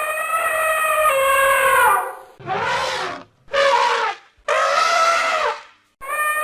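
Elephant trumpeting: a long, steady trumpet blast of about two seconds, then two shorter, rougher blasts, then another long trumpet, with a fourth starting near the end.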